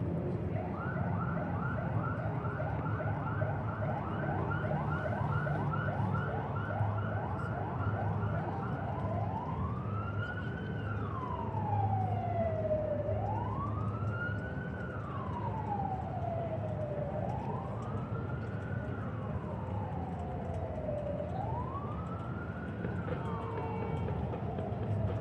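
Emergency vehicle siren: a fast yelp of about three sweeps a second, switching about nine seconds in to a slow wail that rises and falls about every four seconds, over a steady low city rumble.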